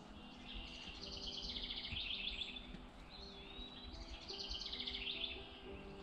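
Wild songbirds singing: several bursts of fast, high trilled song and a thin whistled note near the middle.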